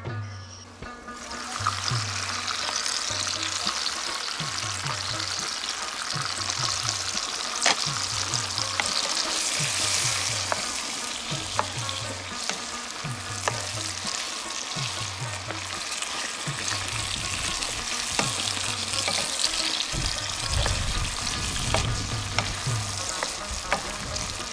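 Chicken sizzling in a karahi over a charcoal fire, starting about a second and a half in. A wooden spoon stirs the pieces, with scattered clicks and scrapes against the pan. A faint low beat of background music runs underneath.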